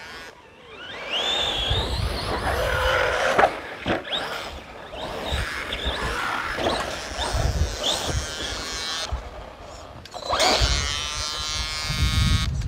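Team Associated Rival MT10 RC monster truck's brushless electric motor whining, rising and falling in pitch as the truck is throttled and braked over grass. Near the end a steady buzzing tone sets in, which the owner takes for a damaged steering servo.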